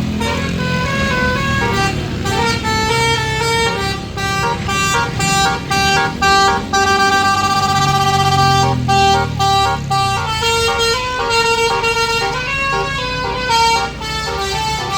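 Basuri melodic bus horn playing a tune: a chord of steady horn tones stepping quickly from note to note, with short breaks and a longer held chord in the middle. A bus engine rumbles underneath.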